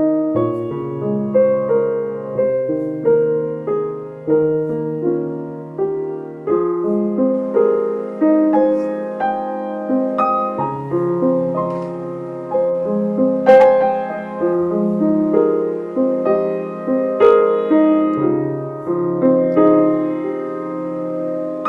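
Background piano music: a gentle piece of struck notes and chords that each ring and fade.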